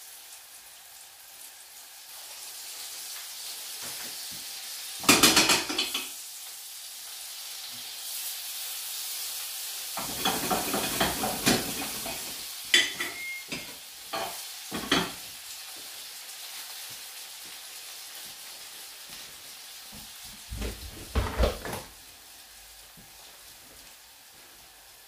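Sea bass fillets frying in butter in a frying pan, a steady sizzle. A metal spoon clatters and scrapes against the pan several times; the loudest knock is about five seconds in, with more in the middle and near the end.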